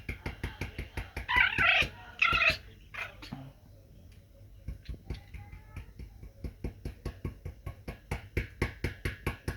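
Pomeranian dog making funny vocal noises: two loud pitched cries about a second and two seconds in, then a fast, even run of short sharp sounds, about five a second.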